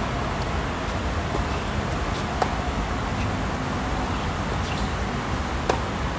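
Tennis racket strings striking the ball in a rally: two sharp pops about three seconds apart, the second the louder. A steady low rumble runs underneath.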